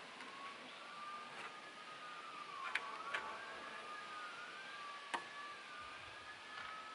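Faint emergency-vehicle siren wailing, two tones overlapping and slowly rising and falling, with a few sharp clicks about three seconds in and again near five seconds.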